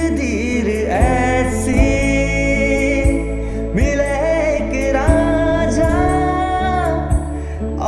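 A man singing a slow Hindi film song into a microphone, holding long notes that bend and slide in pitch. Under the voice is a musical accompaniment with a steady low bass and sharp percussive hits every second or two.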